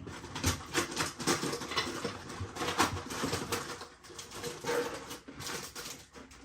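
Irregular clicks, taps and rustling of small items being handled and rummaged through while searching for a memory card.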